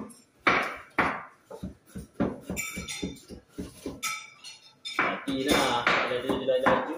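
Knife chopping vegetables on a cutting board: a run of sharp, irregular taps, a few a second, with light clinks of kitchenware.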